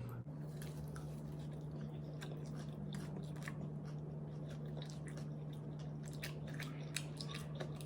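Chicken wings being bitten and chewed: scattered small, wet mouth clicks and crunches. A steady low hum runs underneath.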